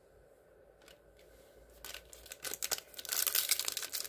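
A foil trading-card pack wrapper being crinkled and torn open. The crackling starts about two seconds in and grows busier toward the end.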